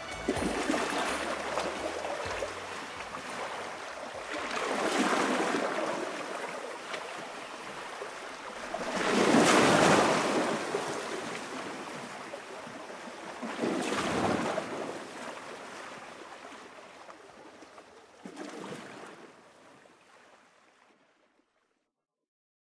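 Surf-like rushing noise that swells and falls back four times, a few seconds apart, the third swell the loudest, then fades out about a second before the end.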